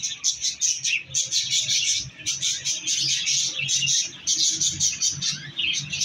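A flock of budgerigars in an aviary chirping and chattering continuously, many fast, high overlapping calls with no pause.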